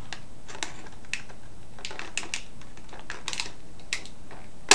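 Irregular light clicks and taps of hard plastic, several over a few seconds, from a Transformers action figure being handled.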